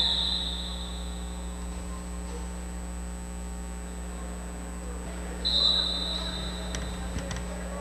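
Referee's whistle blown twice: one blast tails off in the first second, and a louder blast comes about five and a half seconds in and lasts a second or so. A steady low hum runs underneath.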